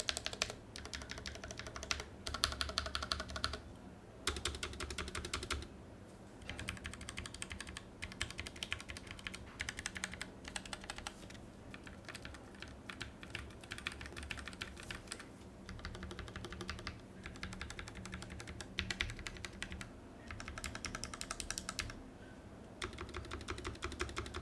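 Typing on a Tecware Phantom L low-profile mechanical keyboard with Outemu low-profile linear red switches. The keystrokes come in rapid bursts a second or two long, with short pauses between them. Foam inside the case damps the sound, so it has no hollow ring.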